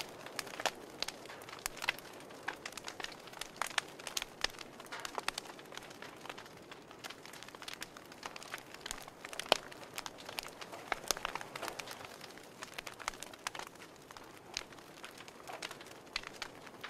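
Wood fire crackling in a wood stove: a steady low hiss with frequent irregular pops and snaps, one sharper pop about halfway through.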